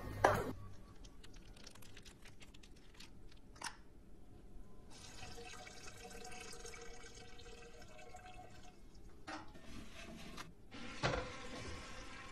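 Sharp heel clicks on a hard floor, then a steady trickling stream into a toilet bowl for about four seconds as a woman urinates. Near the end comes a single louder thump.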